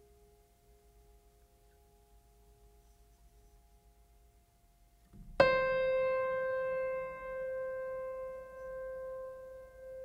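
Background piano music: soft held notes, then one loud piano note struck about halfway through that rings on and slowly fades.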